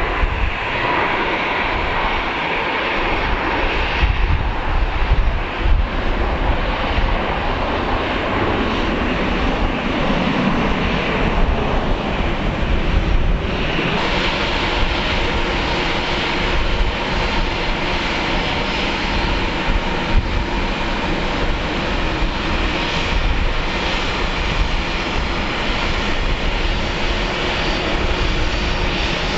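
Airbus A320 jet engines: a steady rushing noise. It changes abruptly about fourteen seconds in, from an A320 rolling along a distant runway to one taxiing close by.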